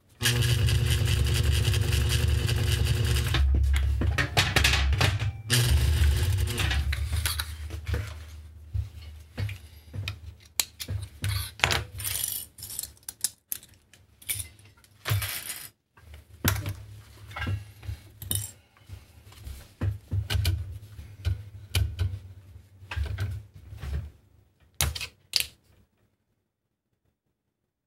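Juki DDL-555-4 industrial straight-stitch sewing machine running steadily as it stitches webbing for about three seconds. After that come scattered clicks and metallic clinks as the strap is handled and repositioned, with a few shorter, weaker runs of the machine.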